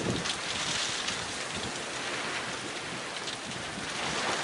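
Graupel (soft hail, small rime pellets) falling steadily: a continuous fine hiss of pellets landing on snow and ground, with faint scattered ticks.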